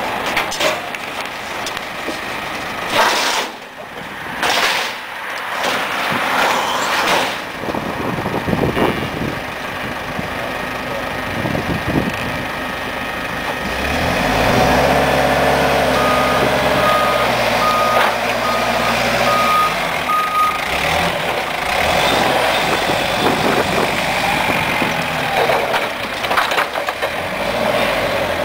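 A heavy vehicle's engine running, with its reversing alarm beeping about six times at an even pace partway through. A few sharp knocks come in the first half.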